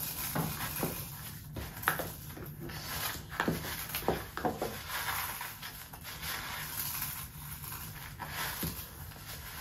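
Cornflakes being crushed by hand in a plastic tub, with a spoon scraping through flour in another tub: soft crackling and scattered small clicks and scrapes.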